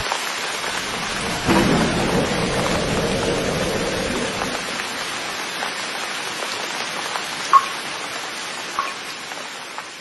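Steady rain with a roll of thunder starting about a second and a half in and rumbling away over several seconds, then two brief sharp sounds near the end as the rain slowly fades.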